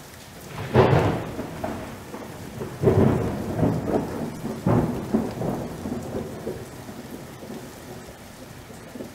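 Thunder and rain: three loud rolls of thunder about one, three and four-and-a-half seconds in over steady rain, the rumbling slowly dying away to the hiss of rain.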